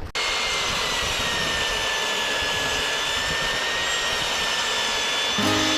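Power saw ripping a 2x4 lengthwise to make stakes: a steady, loud running whine with a slight downward drift in pitch as the blade works through the wood. Acoustic guitar music comes in near the end.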